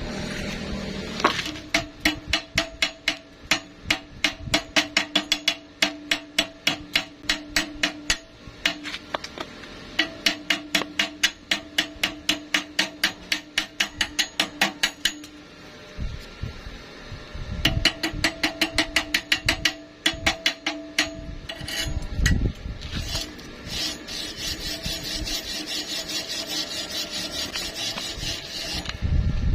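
Runs of quick, even metal tapping, about three strikes a second, with short pauses between runs. Near the end it gives way to a steady crackling hiss.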